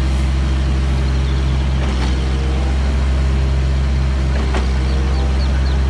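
Concrete mixer trucks' diesel engines running steadily with a deep, even note.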